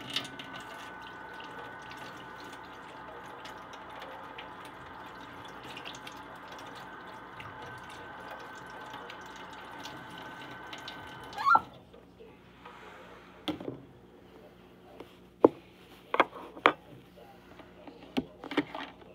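Kitchen tap running steadily for about eleven seconds, then turned off. After it come several sharp clinks and knocks of kitchenware.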